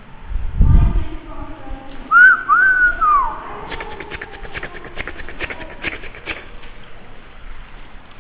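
Two short arching whistled notes and a third that falls away, the loudest sound here, after a low thump about half a second in; then a run of sharp clicks for a few seconds.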